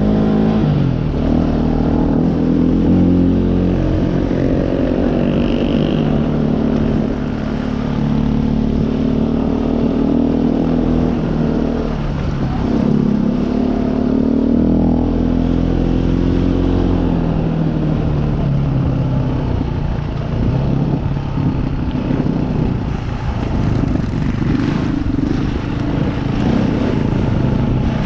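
Trail bike engine heard from the rider's own bike, running under load up a rough track, its pitch rising and falling with the throttle and dropping sharply a few times. In the second half it grows rougher, with more rattle from the bike over the rutted, muddy ground.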